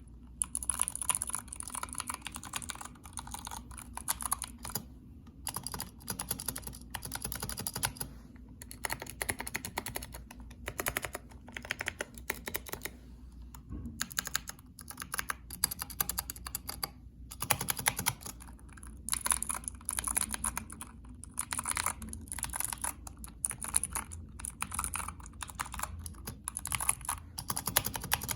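Mechanical keyboard being typed on in fast bursts of keystrokes with short pauses between them, a soft, deep 'creamy' key sound.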